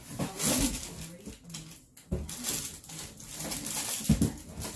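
Rummaging through a box of packaged items: plastic and paper packaging crinkling in two stretches, with a dull knock about two seconds in and another near the end.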